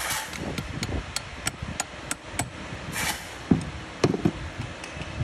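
Metal-on-metal clicks as a brass-caged roller bearing is worked down onto a gearbox shaft by hand: a quick run of sharp ticks, about three a second, then a couple of duller knocks about three and a half and four seconds in.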